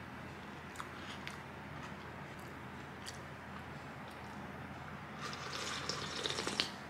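Light handling sounds over a faint room hum: a few soft clicks, then about a second and a half of rustling with small clicks near the end.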